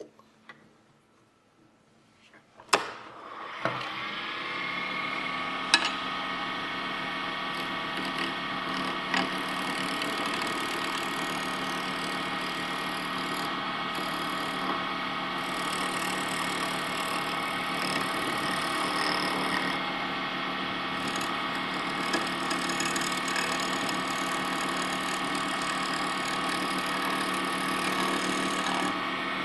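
A wood lathe switched on about three seconds in, then running steadily with a gouge cutting a spinning wooden sphere. The cut is nearly continuous, with little of the interrupted tick left: a sign that the sphere is close to round.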